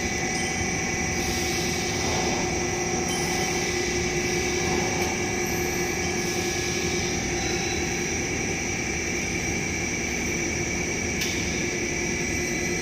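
Electric scissor lift's drive motor running steadily as the platform rises with a person on it: a constant machine hum with a few steady tones.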